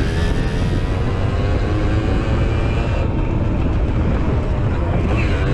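Simson moped's small two-stroke engine running steadily at speed, heard onboard the bike.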